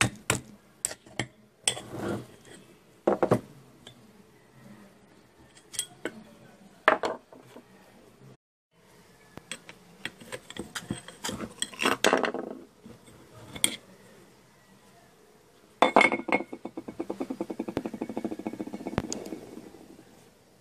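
Screwdriver prying and tapping at the plastic housing of an air conditioner motor: scattered sharp clicks and knocks of metal on hard plastic. Near the end comes a fast, even run of clicks lasting about three seconds.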